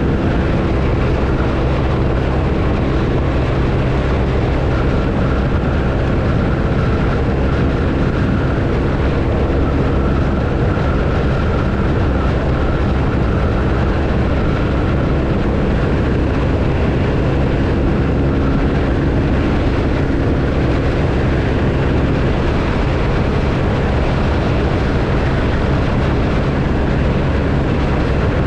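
BMW R1250RT's boxer-twin engine running at a steady, even speed while riding.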